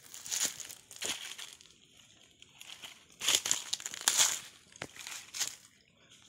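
Footsteps crunching through dry fallen leaves, an uneven step or shuffle about every second, the loudest a little past halfway.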